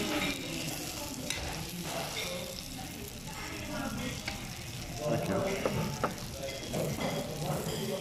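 Pork sisig with egg sizzling on a hot sizzling plate as a metal spoon stirs it, the spoon clicking and scraping against the plate now and then over the steady hiss of the frying.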